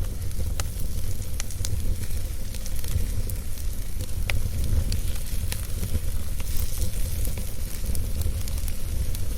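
Wood fire burning: a steady low rumble of flames with irregular sharp crackles and pops from the burning logs.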